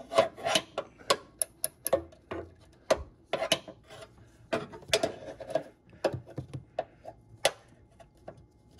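Irregular sharp metal clicks and taps, about two a second, from a hand screwdriver and steel bracket parts being worked as a power-frunk strut bracket is bolted in place.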